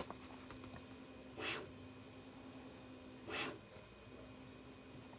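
Bambu Lab A1 Mini 3D printer running its first calibration: a faint steady hum with two brief swishes of movement about two seconds apart.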